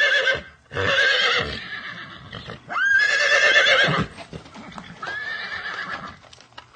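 An animal calling repeatedly, four loud, wavering, high-pitched calls of about a second each; the first is already under way at the start, and the later ones open with a quick upward sweep.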